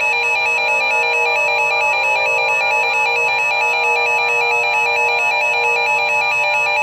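Electronic alert tone warbling rapidly between two high pitches, over a sustained synthesized musical chord.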